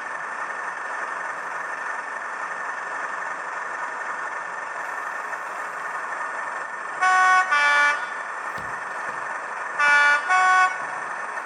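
DCC sound decoder in an N gauge British Rail Class 37 model playing the diesel engine's steady running sound. It sounds the two-tone horn twice, each time a pair of short notes, about seven seconds in and again near ten seconds.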